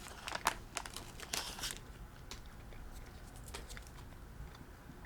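Faint crinkling and crackling of small things being handled, with several sharp crackles in the first two seconds, then fewer and fainter.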